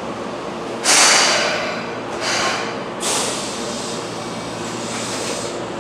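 Keihan 6000 series electric train standing at the platform after stopping, with three sudden hisses of compressed air let out from its air system: a loud one about a second in, a shorter one at about two and a half seconds and another at three seconds. Each dies away over a second or two above the train's steady hum.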